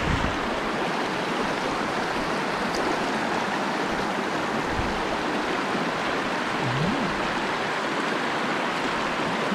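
Shallow mountain stream rushing steadily over rocks in a riffle.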